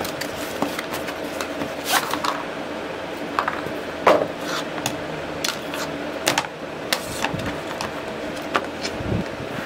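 Handling sounds of a cardboard box being opened and a rolled rubber-backed RGB mouse pad being taken out and unrolled: scattered taps, scrapes and rustles, the sharpest about four seconds in, over a steady low hum.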